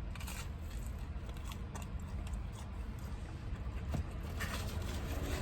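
Close-miked chewing of pizza: soft wet mouth noises and small clicks over a low steady background hum.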